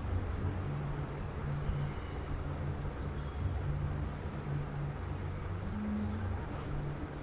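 Steady low mechanical hum, with a bird giving a short falling chirp about every three seconds.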